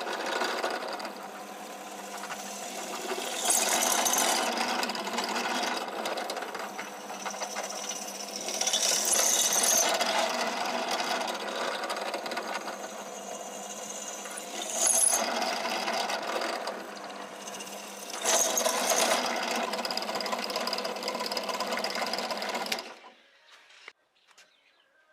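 A power tool running continuously while working metal, growing louder in several surges before cutting off abruptly near the end.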